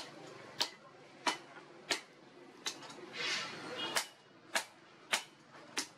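Hand hammer striking red-hot bearing steel on a steel post anvil: a steady run of sharp blows about one every 0.6 s, with a short pause midway. This is the forging of a curved trident prong.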